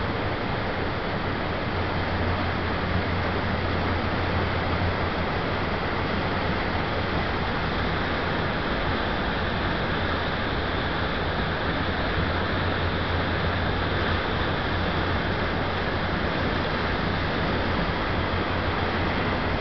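River in flood rushing down a weir's salmon steps (fish pass): a steady, unbroken noise of white water pouring and churning, with a deep low rumble beneath.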